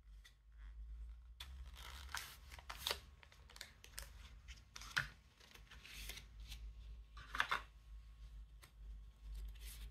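Paper and cardboard packaging being handled by gloved hands: scattered soft rustles, slides and light taps, with sharper scrapes about halfway through and again about three-quarters of the way in.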